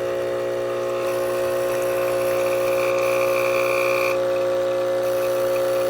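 ChefWave Káva capsule espresso machine's pump running while it brews a shot, a loud steady hum with a rattle of vibration. A brighter, higher layer joins about a second in and drops away about four seconds in.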